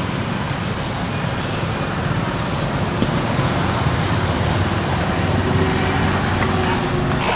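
Steady road traffic noise, a continuous rumble of passing motor vehicles.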